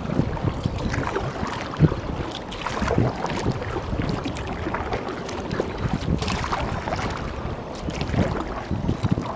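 Kayak paddle strokes dipping and splashing in the lake water, with water lapping along the plastic hull of a Hunter Fishing Up sit-on-top fishing kayak; the splashes come irregularly over a steady wash of water and some wind on the microphone.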